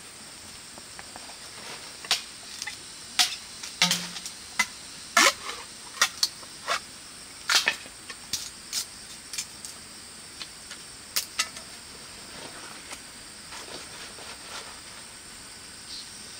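Irregular sharp crackles and snaps of a green bamboo stalk and a large elephant-ear leaf being handled, bunched in the first part and thinning out later, over a steady high forest hiss.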